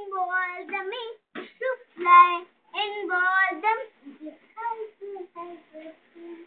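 A young boy reciting a poem in a high, sing-song chant, with stretched syllables that are louder for the first few seconds and softer and choppier later on.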